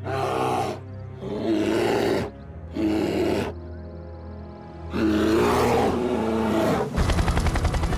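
Animated bear roaring four times, the last roar the longest, over a low music drone. Near the end a fast pulsing rumble sets in.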